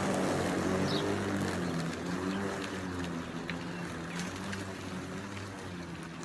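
Ryobi 40-volt battery lawn mower running as it cuts tall grass: an electric motor-and-blade hum whose pitch wavers up and down as the load changes, growing gradually fainter.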